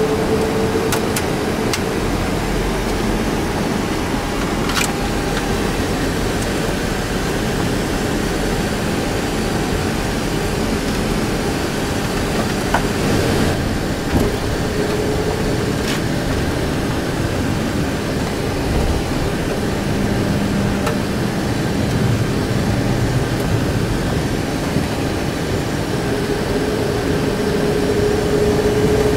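Steady cockpit noise of a Boeing 737-300 taxiing: its CFM56-3 engines running at low taxi power under the hiss of cockpit air. A faint steady hum comes and goes, and there are a few faint clicks.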